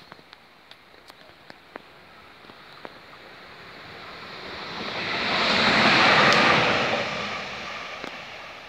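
A vehicle passing close by: a rushing noise that swells over a few seconds, is loudest a little past the middle, then fades. A few faint clicks come early on.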